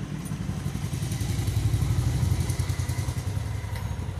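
A motorcycle engine running in the background, not the half-assembled engine being worked on. Its low, fast-pulsing note grows louder toward the middle and eases off near the end.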